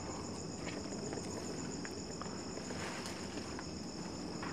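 A steady, high-pitched chorus of night insects such as crickets, in two high tones, one of them pulsing rapidly. A few faint ticks are scattered through it.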